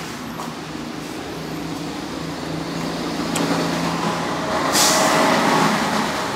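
Street traffic noise: a vehicle engine running steadily and growing louder, with a short burst of hiss about five seconds in.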